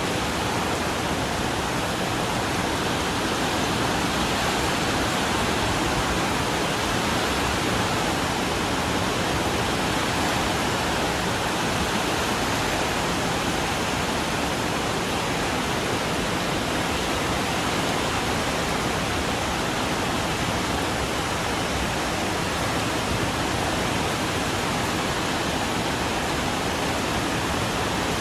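Steady rain falling on a corrugated iron porch roof, an even dense hiss with no breaks or single drops standing out.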